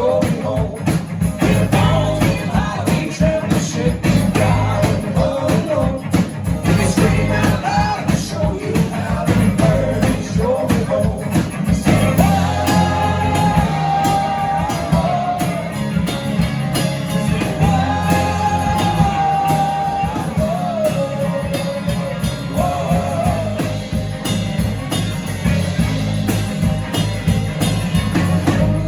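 Live music: a male singer-songwriter singing over instrumental backing, with a couple of long held vocal notes partway through.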